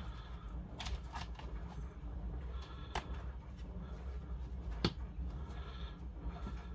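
A few sharp clicks and taps as a replacement laptop LCD panel is handled and lined up in the screen lid, over a low steady hum. Two clicks come close together about a second in, another at about three seconds, and the sharpest just before five seconds.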